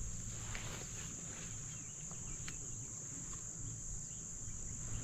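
Steady high-pitched insect chorus, a continuous trilling hum, with a single faint tick about halfway through.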